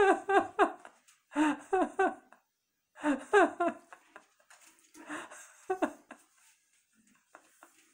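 A dog vocalizing in four short bursts of three or four rising cries each, the last burst weaker.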